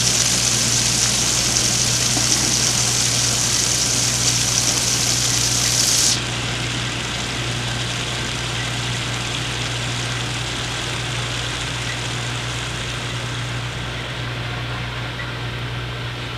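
Automatic overflow bottle filler running, with a steady hiss of liquid rushing through the filling nozzles into the plastic jugs. The hiss cuts off sharply about six seconds in, leaving the machine's steady low pump hum.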